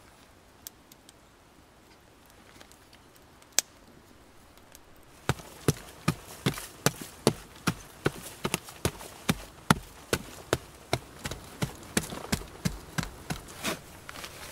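Short-handled shovel digging into packed earth: after a few seconds of near-quiet with the odd click, a steady run of sharp chopping strikes into the soil starts about five seconds in, two to three a second, with loose dirt scattering.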